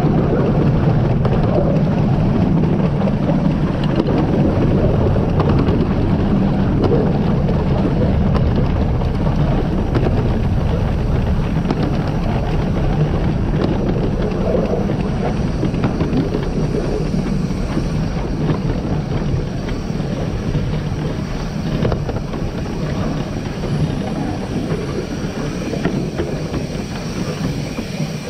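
The 15-inch gauge steam locomotive River Irt running along the line: a steady rumble of engine, wheels on rail and passing air, easing slightly in loudness towards the end.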